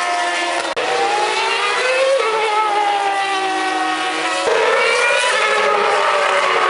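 Formula 1 cars' 2.4-litre V8 engines running at high revs as they pass one after another, the pitch sliding as each goes by. The sound changes abruptly about a second in, and again, louder and higher, about four and a half seconds in.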